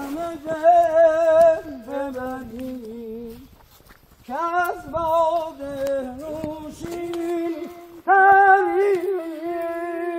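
A person singing a slow, wordless melody in long held notes with a slight waver. The tune comes in three phrases separated by short pauses.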